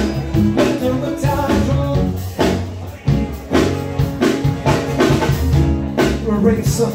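Live band playing: strummed acoustic guitar and a drum kit, with a voice singing over them.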